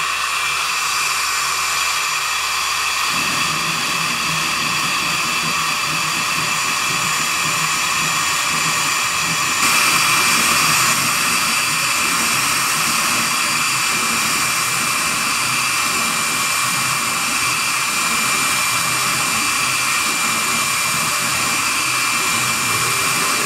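CNC router spindle running at high speed with a steady high whine while its tapered carving bit mills a relief into wood, with the hiss of the cut throughout. It gets briefly louder for about a second about ten seconds in.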